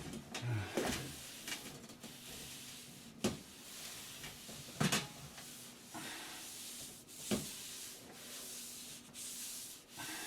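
Damp paper towel rubbing back and forth over a freshly sanded filler patch, wiping off the sanding dust before painting. A few sharp light taps come through the rubbing, at about three, five and seven seconds in.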